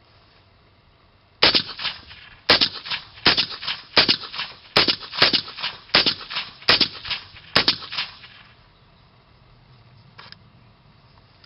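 Semi-automatic .223 AR-style rifle fired through a homemade suppressor: about nine shots at an uneven pace over roughly six seconds, each followed by a short ringing echo.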